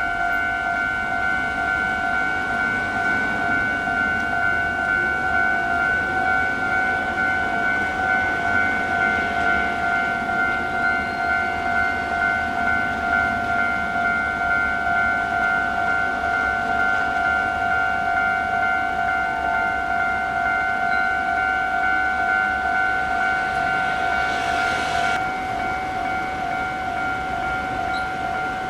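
Electronic railway level-crossing warning bell ringing steadily, one tone repeated rapidly over and over, sounding while the crossing is closed for an approaching train. A short hiss near the end.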